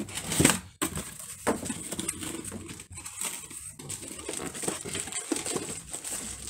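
Cardboard box flaps being pulled open, then a 6x9 car speaker in a plastic bag handled and lifted out of the box: irregular rustling of cardboard and crinkling plastic. The loudest scrape comes about half a second in.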